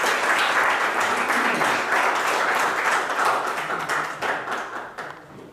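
Audience applauding: many people clapping, dying away near the end.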